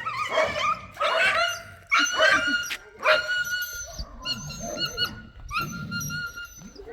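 A dog whining and yelping in a string of high-pitched cries, about one a second.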